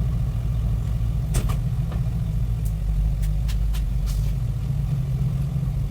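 Motor vehicle engine running steadily: a low, even rumble, with a few faint clicks.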